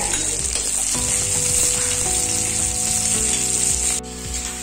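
Sliced onions sizzling as they hit hot oil in a cast-iron kadai, a loud steady frying hiss. The hiss drops off suddenly about four seconds in.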